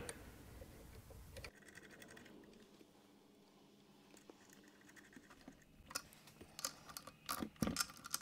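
Faint small metallic clicks and scratches of steel studs being threaded by hand into the aluminium face of an ignition rotor, mostly in the last couple of seconds.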